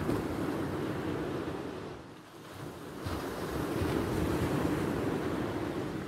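Sea waves breaking and washing up the beach, the surf swelling twice: once at the start and again from about three seconds in.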